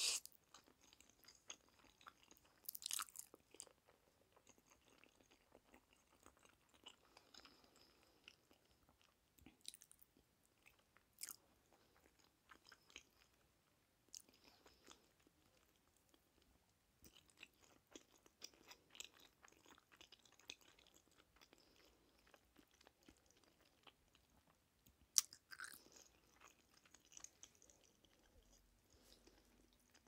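Close-miked eating sounds: a slurp of black-bean-sauce noodles at the start, then quiet chewing with many small wet mouth clicks, broken by a few sharper bites, one about three seconds in and another late on.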